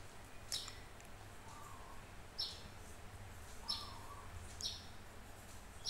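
Faint bird chirps: short falling notes repeated every second or two, over a low steady hum.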